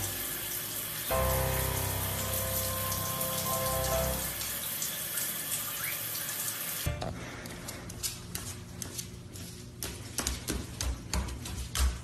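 Shower spray running in a steady hiss, with held tones over it for a few seconds. About seven seconds in the water sound cuts off and a run of sharp, irregular taps and clicks follows.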